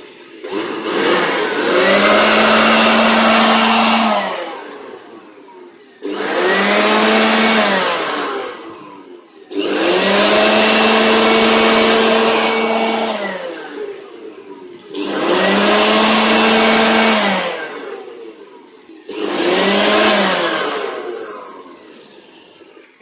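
Black & Decker KTX-4000 electric leaf blower being test-run after a rebuild on new ceramic bearings, switched on and off five times. Each time its brushed motor spins up to a steady whine over a loud rush of air, then winds down.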